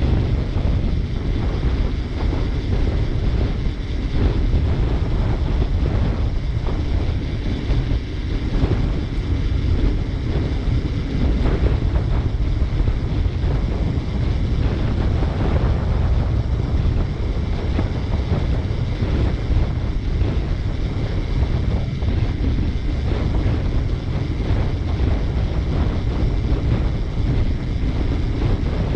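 Wind rushing over the microphone of a camera riding on a moving bicycle, a steady low rumble mixed with the noise of the ride.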